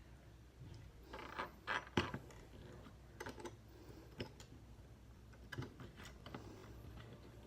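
Plastic parts and ratcheting joints of a Transformers Studio Series Ratchet figure clicking and creaking as it is handled and transformed. The light clicks come in a scatter, busiest about a second or two in.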